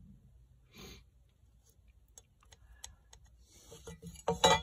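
Small scattered clicks and taps of a metal speed square and marker being handled against a log, with a louder cluster of taps near the end.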